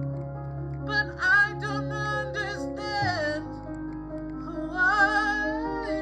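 A singer holding long wordless notes with vibrato in a slow gospel-style song, over sustained low backing chords that change about halfway through.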